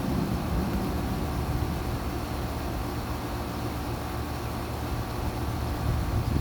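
2019 Carrier Comfort central air conditioner's outdoor unit running steadily, its condenser fan and compressor giving a constant low hum.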